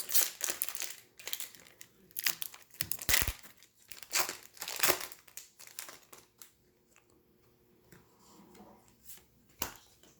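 A Magic: The Gathering promo pack's wrapper being torn open and crinkled by hand, in dense crackles for about six seconds, then quieter handling.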